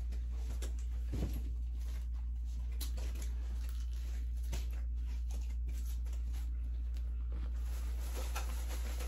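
Quiet eating: a fork clicking and scraping against plastic takeout containers and chewing, as scattered small clicks and rustles over a steady low hum.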